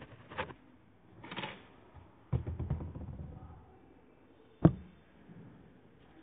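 Scattered handling knocks and clicks, with a rough rustling stretch about two and a half seconds in and one sharp knock about four and a half seconds in.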